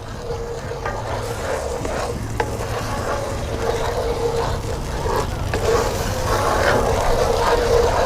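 Gravy being stirred in a pan, a utensil scraping in irregular strokes while the sauce simmers, as flour is worked in to thicken it.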